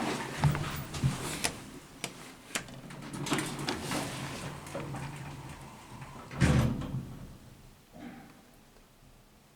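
Ehime Elevator Service passenger elevator's sliding doors moving, with scattered clicks and one loud thud about six and a half seconds in, then the sound dies away.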